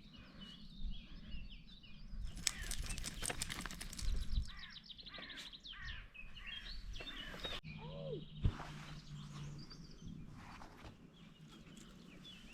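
Songbirds singing: a run of quick chirps and whistles with a fast trill about two and a half seconds in.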